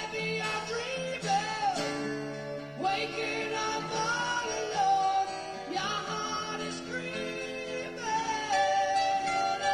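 Live acoustic rock song: a male vocalist sings long held notes over acoustic guitar accompaniment.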